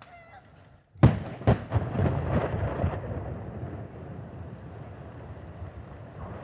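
Underwater demolition charges going off in the old I-74 bridge piers: a sudden low-pitched woof about a second in, a second blast about half a second later, then a rumble that fades over a couple of seconds into a steady background noise.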